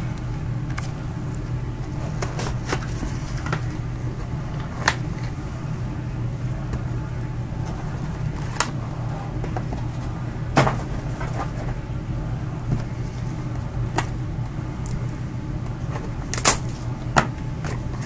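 Cardboard trading-card hobby box being handled and opened with gloved hands: scattered short crackles and taps over a steady low hum.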